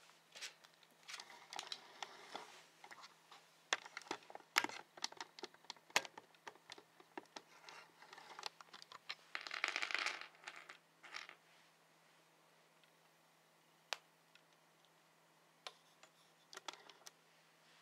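Faint handling noise close to the microphone: scattered light clicks and short crinkling rustles, with a longer crinkle about nine to ten and a half seconds in. After that it is mostly quiet apart from a few single clicks.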